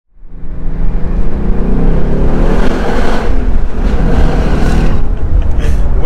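2021 Ford Mustang GT's 5.0 L Coyote V8 running loud under acceleration, its exhaust note rising in pitch through the first few seconds. Heard from the open cabin of the convertible.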